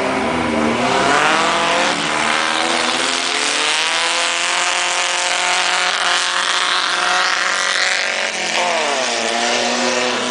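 Volkswagen Beetle race car's engine revving hard under acceleration. It climbs in pitch early on, holds high, then dips and climbs again near the end.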